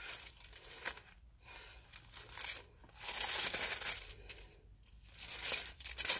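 Paper rustling and crinkling in irregular bursts, loudest for about a second starting three seconds in.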